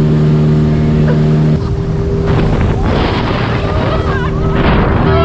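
Speedboat engine running at speed with a steady drone, with water and wind rushing past. About a second and a half in, the drone drops away and splashing water and wind take over, with the engine fainter beneath.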